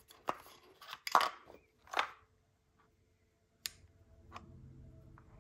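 Watch-box packaging being handled: a few short, separate rustles and clicks, the strongest about one and two seconds in.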